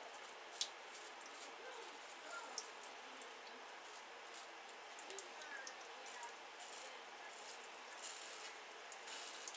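Shavette with a half blade scraping stubble on the cheek in short strokes: a faint, crisp rasping on and off over a steady hiss, with one sharper click about half a second in.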